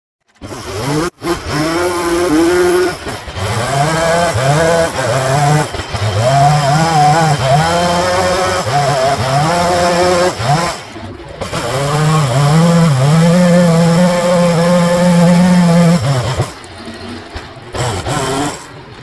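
Chainsaw running and cutting wood, its engine pitch rising and falling as it bites in and eases off. The sound breaks off abruptly a few times and is quieter in the last few seconds.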